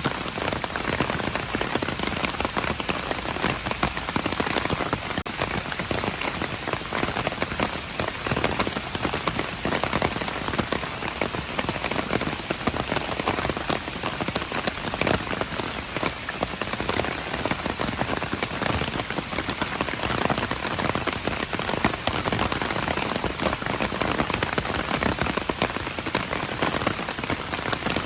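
Steady rain falling, a dense patter of countless individual drops.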